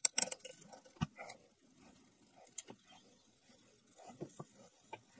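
Dull kitchen knife scraping old gasket material off the intake face of an aluminum cylinder head, in short irregular scrapes and ticks, with a sharp knock about a second in.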